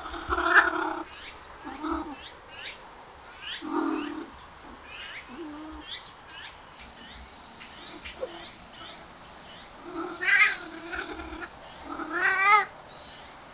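Cats meowing and yowling: a series of short calls, then longer drawn-out wavering yowls near the end, the loudest about twelve seconds in.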